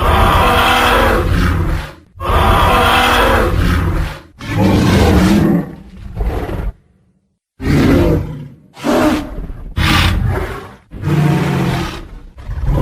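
Tyrannosaurus rex roar sound effects: a string of about eight loud roars, each one to two seconds long, with a short silent gap just past the middle.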